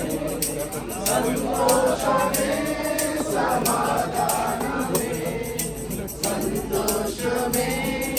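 A congregation singing a worship song together, with a shaken hand percussion such as a tambourine keeping a steady beat.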